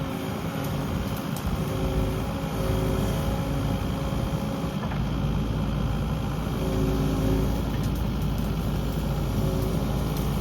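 Kubota KX080 mini-excavator's diesel engine running steadily under working load as it digs out brush, its pitch shifting slightly now and then.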